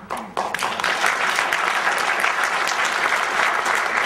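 Audience applauding: many hands clapping, beginning about half a second in and swelling within a second to steady, full applause.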